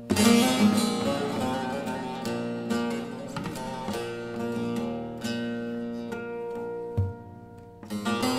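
Bağlama (saz), the long-necked Turkish lute, played solo. It opens with a burst of fast plucked notes, then holds ringing notes that die away, and a new phrase starts near the end.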